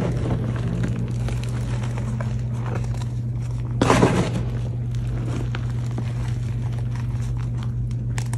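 Hands crushing and squeezing powdery gym chalk: faint crumbling crackles, with one louder crunch about four seconds in, over a steady low hum.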